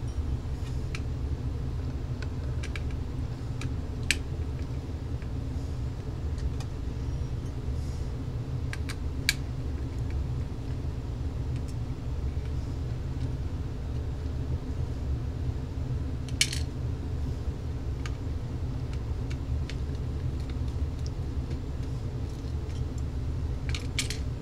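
Screwdriver backing small screws out of a plastic cordless-phone handset casing: a few scattered light clicks and ticks of metal on plastic, over a steady low background hum.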